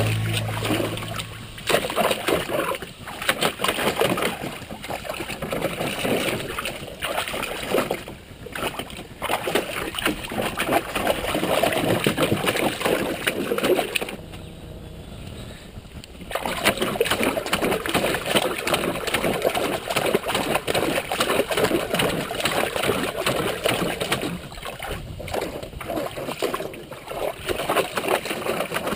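Water splashing and sloshing in a plastic kiddie pool as a border collie paws and plays in it, with a brief quieter lull about halfway through.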